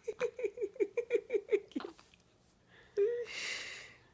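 A baby's quick run of short voiced gasps, about six a second, then a sneeze about three seconds in: a brief voiced catch followed by a second-long hissing burst.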